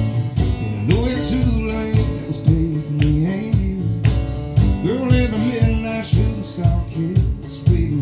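Live country band playing with a male lead vocal over electric guitar and a steady drum beat.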